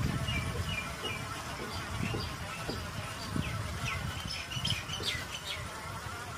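Birds chirping in quick short calls, several a second, over a low rumble and occasional knocks from the bike rolling along a rough dirt path.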